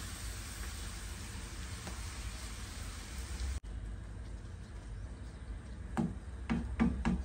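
Chopped onion sizzling in hot oil in a frying pan, a steady hiss. After an edit about a third of the way in the sizzling is quieter, with a few short knocks near the end from the wooden spoon stirring the onion in the pan.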